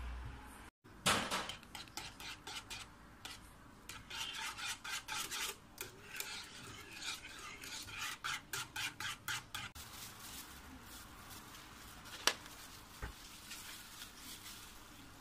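Wire whisk beating cream into a milk mixture in a coated cooking pot: fast, even scraping strokes, about four a second, that stop about ten seconds in. A single sharp click follows a couple of seconds later.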